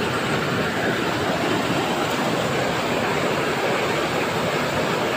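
Steady rush of falling water from a waterfall, an even, constant noise.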